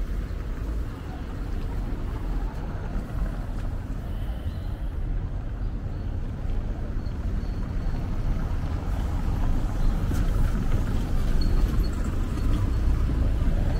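Outdoor street ambience: a steady low rumble that grows slowly louder toward the end.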